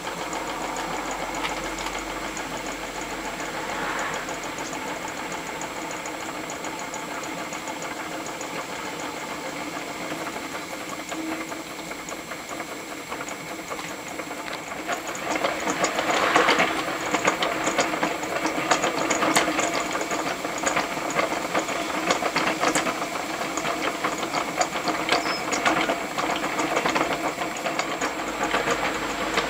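Hand-built hot-air (Stirling cycle) fan motor running, its linkages and crank making a steady, rapid mechanical clatter that grows louder about halfway through.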